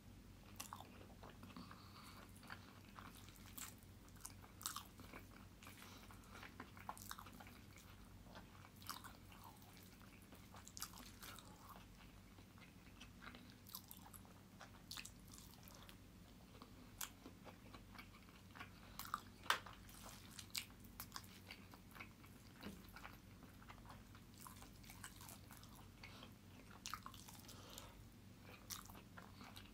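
Quiet, close-miked sounds of a man eating chicken cheese kottu by hand: soft wet chewing clicks and smacks, scattered unevenly throughout, the loudest about two-thirds of the way in.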